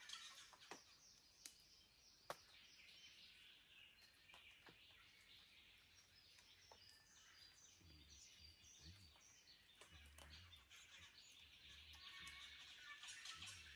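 Faint dawn chorus of Australian forest birds: many overlapping chirps and calls, with a few sharp ticks in the first few seconds.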